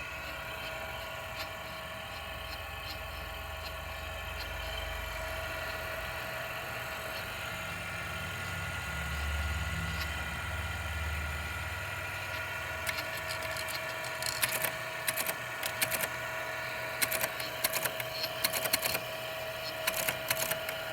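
Teletype's electric motor running with a steady hum. From about two-thirds of the way in, the machine clatters in quick, irregular bursts of sharp clicks as its typing mechanism works.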